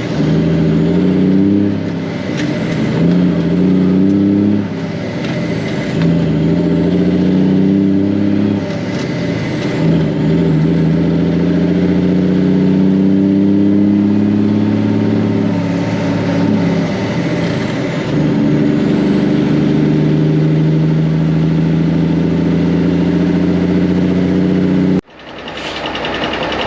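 Ford L9000 truck's Cummins diesel engine pulling through the gears: the engine pitch climbs and drops back several times as it shifts, then holds fairly steady under load. The sound cuts off abruptly near the end.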